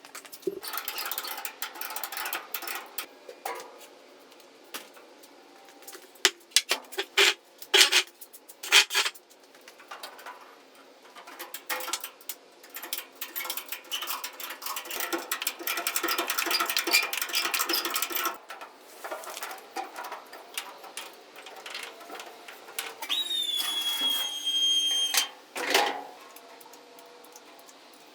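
Irregular clanks, clicks and scraping from loading a machine and strapping it down, with a brief high squeal about three-quarters of the way through.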